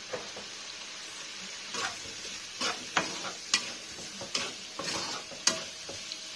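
Wooden spatula stirring and tossing fried chicken pieces and peppers in a wok, a string of scrapes and knocks starting about two seconds in, over a steady sizzle from the hot pan.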